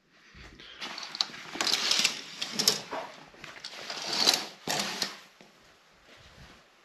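Curtains being drawn open along their rail, a few bursts of rattling clicks and fabric swishing from about one second in until about five seconds in.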